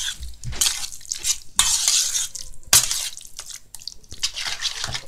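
Metal spoon stirring a wet chopped-chicken and egg mixture in a stainless steel bowl: irregular scraping and clinking strokes against the bowl.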